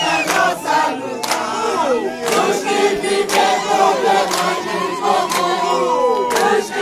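Crowd of supporters singing and chanting together in celebration, many voices at once, with sharp beats about once a second.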